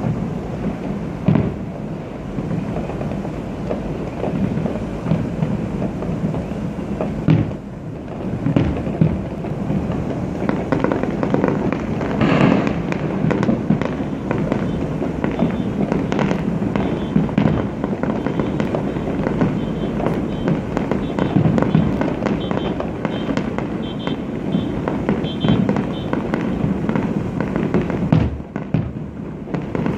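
Many fireworks going off at once: a continuous rumble of overlapping bangs and crackles, with a few louder bangs standing out.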